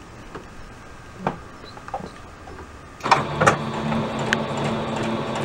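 A few light clicks, then about three seconds in a Singer electric sewing machine starts running at a steady speed, stitching around the edges of a fabric label.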